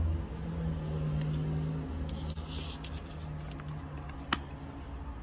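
Paper and card handled by hand: light rustling and scraping as the lyric sleeve and a small printed download card are touched and picked up, with one sharp click about four seconds in, over a low steady hum.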